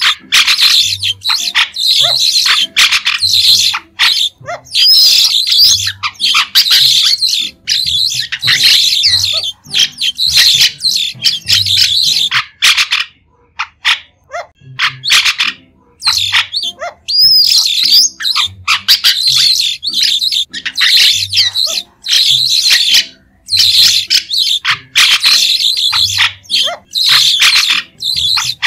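White-shouldered starlings (Sturnia sinensis) calling: shrill chattering calls in bouts of about one to two seconds, separated by short breaks.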